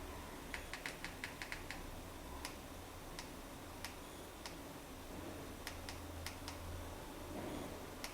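Plastic buttons on a Mi TV Stick remote control being pressed: a quick run of clicks about a second in, then single presses every half second to a second.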